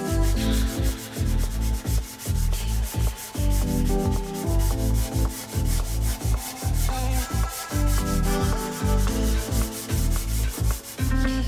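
Sandpaper rubbed by hand along a timber rail in quick, even strokes, over background music with a bass line.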